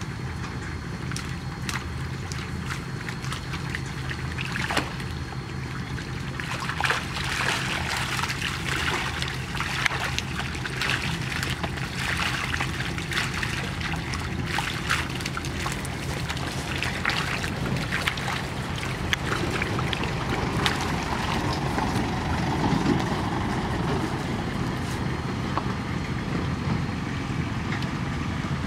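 Trapped tilapia thrashing and splashing in shallow water inside a mesh net trap as it is hauled in, with water trickling and pouring through the mesh; the splashing is busiest in the middle. A steady low hum runs underneath throughout.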